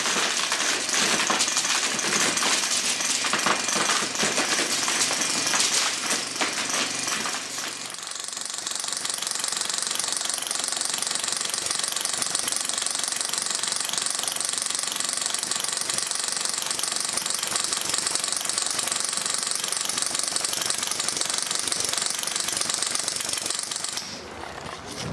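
Classic Army M132 Microgun, an HPA-powered airsoft minigun, firing long continuous bursts as its barrel cluster spins: a fast, dense rattle of shots. About eight seconds in the sound turns steadier and hissier, and it stops abruptly about a second before the end.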